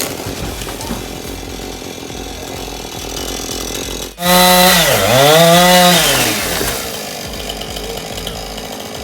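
Husqvarna two-stroke chainsaw running steadily, then about four seconds in it comes in much louder at high revs. Its pitch sags and climbs back as it loads up in the cut, then it eases off and fades back down.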